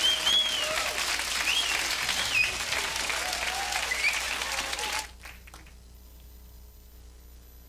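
Large crowd applauding and cheering, with whoops rising and falling over the clapping. It cuts off suddenly about five seconds in, leaving only a faint steady hum.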